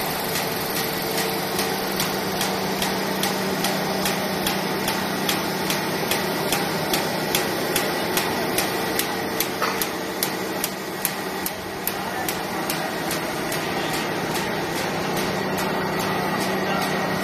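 Haosheng HS-1400A roll-to-sheet paper cutting machine running: a steady hum with a regular, sharp click about twice a second.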